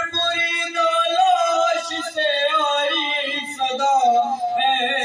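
A male reciter chanting a noha, an Urdu lament, unaccompanied through a microphone, drawing out long wavering melodic notes.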